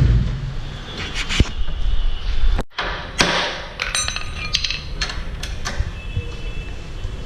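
Metal tools clinking and knocking against metal parts in a workshop: a string of sharp clinks and taps, a few of them ringing briefly. The sound cuts out for a moment near the middle.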